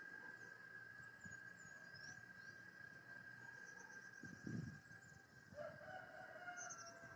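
A rooster crowing once, a little past halfway through, over a steady faint high-pitched tone and faint bird chirps.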